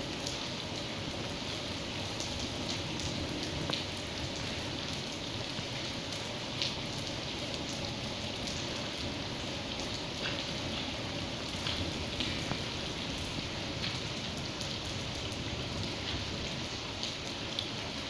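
Steady rain falling on a wet tiled floor: an even hiss with scattered sharper ticks of single drops landing.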